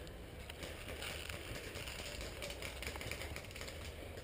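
Faint rustling with scattered light clicks and ticks, from a player shifting through dry brush and handling an airsoft rifle against gloves and gear.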